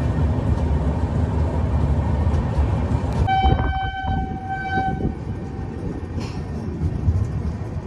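Passenger train running, its wheels rumbling on the rails as heard from an open coach door. About three seconds in, the locomotive horn sounds one steady blast of nearly two seconds, and the rumble is a little softer after it.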